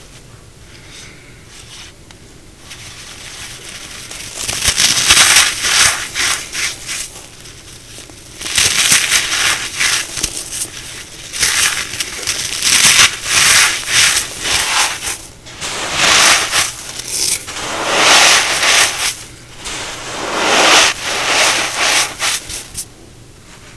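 Brittle cornstarch crunchies (dried cornstarch pieces) being crushed, crunching and crackling in repeated bursts a few seconds long, starting about four seconds in.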